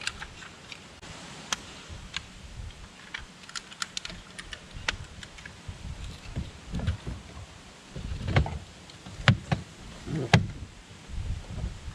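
Irregular small plastic clicks and rattles of electrical connectors being handled and plugged back in inside a pickup truck's door, with a few sharper snaps. Now and then a low rumble of wind on the microphone.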